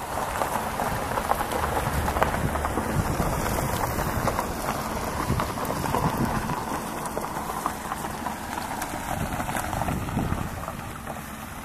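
Wind noise on a handheld camera's microphone: a steady rough rush with scattered crackles.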